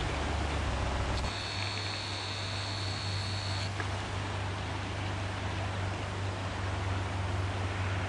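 Steady outdoor noise, an even hiss over a low hum, such as wind on the microphone. A thin, high, steady whine sounds for about two seconds, starting about a second in.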